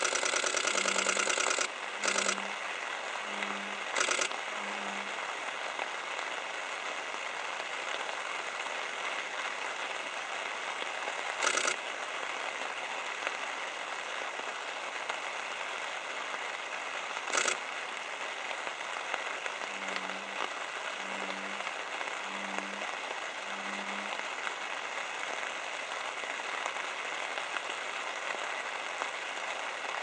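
Steady outdoor background hiss with faint high steady tones. Over it come two runs of four or five short, low notes about a second and a half apart, one near the start and one about two-thirds of the way in, and a few brief sharp knocks.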